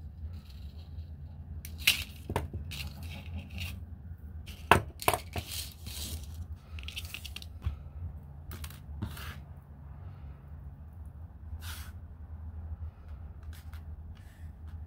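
Thin silver craft wire handled and bent by hand on a cutting mat: scattered light clicks, taps and scrapes of wire, the sharpest about two and five seconds in, over a steady low hum.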